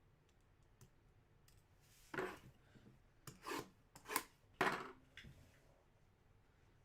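Trading card box packaging being handled: four short scraping rustles about half a second apart, starting about two seconds in.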